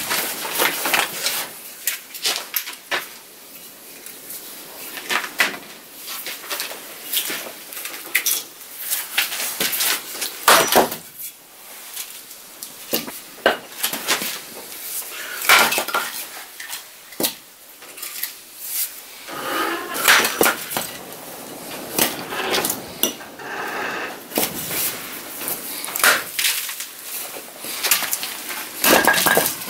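Hatchet splitting a log into kindling: irregular sharp knocks of the blade striking and biting into wood, with short pauses between strokes.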